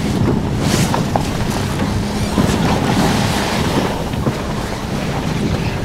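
Jib sailcloth rustling and crinkling close to the microphone as the sail is pulled down and gathered by hand, with many small crackles, over steady wind buffeting the microphone.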